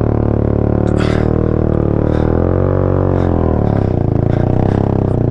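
Suzuki GS 150SE motorcycle engine labouring under load up a steep climb. The engine note sags about halfway through and then picks up again.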